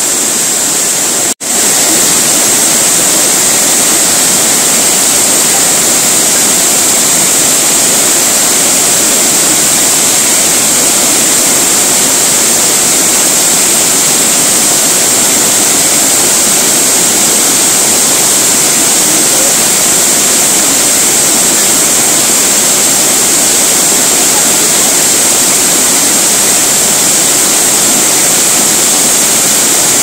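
Waterfall pouring into a plunge pool: a loud, steady rushing of falling water, with a momentary dropout about a second and a half in.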